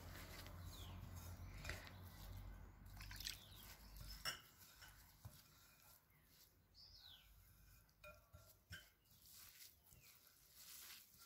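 Faint soft rustling and scraping of a hand rubbing damp coarse semolina with oil and water against a plate, with a few faint light ticks. A faint high chirp comes about seven seconds in.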